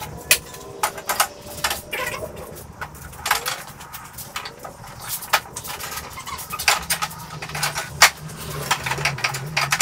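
Irregular clicks and knocks of boards and metal clamps being handled while a wooden door is glued up and clamped on sawhorses.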